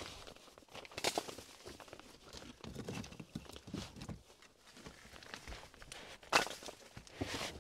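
Irregular rustling and crunching with a few sharp knocks, from someone moving about and handling things: once about a second in, and twice near the end.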